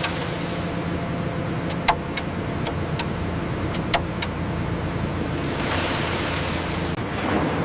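Sawmill machinery running with a steady hum, with a handful of sharp knocks about two to four seconds in and a swelling rush of noise near the end.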